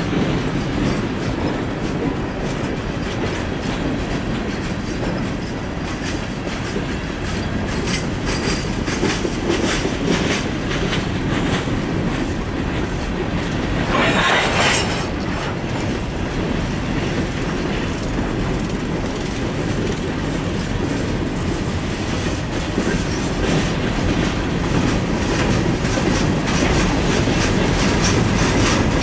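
Freight train of open-top ore hopper cars rolling past close by: a steady rumble with wheels clicking and clattering on the rails. About halfway through there is a brief, louder burst of sharper wheel noise.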